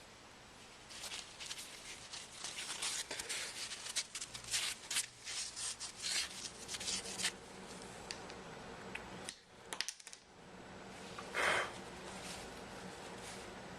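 Close handling noises of a smartphone being worked on by hand: a quick run of small scrapes, rubs and taps, then quieter, with one louder short rustle about eleven seconds in.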